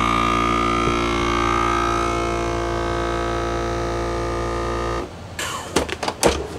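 FoodSaver vacuum sealer's pump running steadily with the lid held down by hand, its tone drifting slowly as the air is drawn out of a bag of sausages, then cutting off suddenly about five seconds in. Clicks and plastic-bag crinkling follow near the end.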